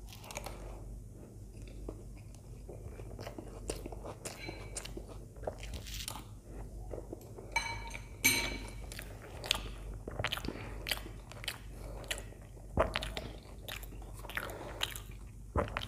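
Close-miked chewing of soft, sambar-soaked idli: a run of wet mouth clicks and smacks. About eight seconds in, a short metallic clink as the steel spoon is set down in the bowl.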